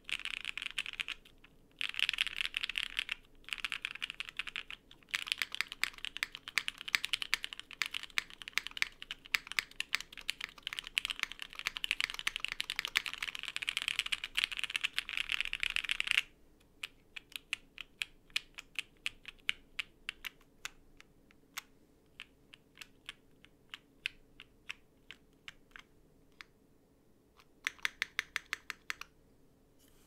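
Typing on a Copium60 60% mechanical keyboard with lubed Popu switches, a half polypropylene plate and o-ring mount, and GMK keycaps. The typing is fast and continuous, with a few short pauses, for about the first sixteen seconds. Then come slower single keystrokes, then a short quick burst near the end.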